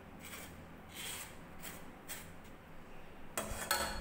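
Steel spoon scraping mashed boiled potato off the underside of a wire-mesh flour sieve: a few soft rasping strokes, then two louder metallic scrapes near the end.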